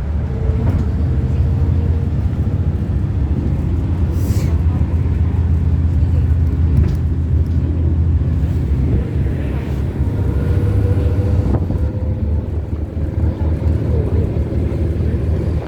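City bus engine and road noise heard from inside the moving bus, a steady low rumble with a faint whine, and a short hiss about four seconds in.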